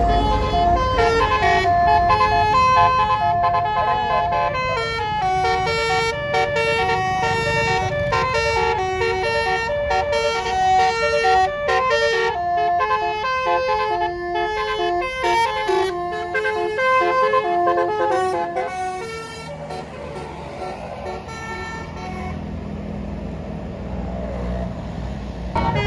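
A bus's musical air horn (basuri telolet) plays a quick melody of stepped notes for about nineteen seconds over the low rumble of the bus engine. The horn then stops and the engine keeps running.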